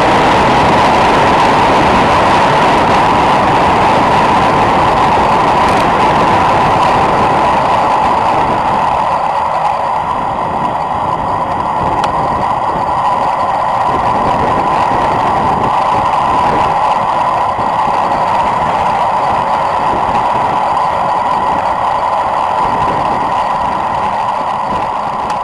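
Steady rushing wind noise on a road bike's handlebar camera during a fast descent, with tyre roar on the tarmac. It eases a little about a third of the way in.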